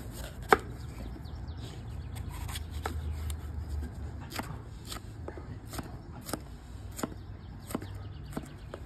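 Chef's knife cutting and dicing bell peppers on a solid wooden slab cutting board, the blade knocking the wood with each cut. There is one sharp knock about half a second in, then a run of chops from about halfway through, roughly one every half second.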